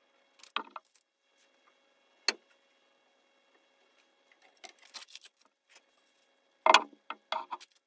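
Small wooden strips being set down and positioned against a glued wooden panel: a few short, light wooden knocks and clicks, the loudest group near the end.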